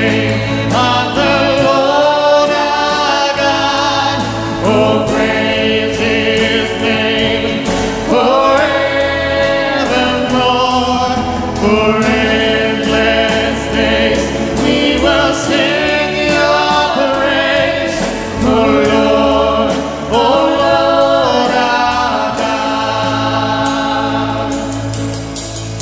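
Church worship band singing the chorus of a worship song in several voices, like a choir, over acoustic guitar and keyboard.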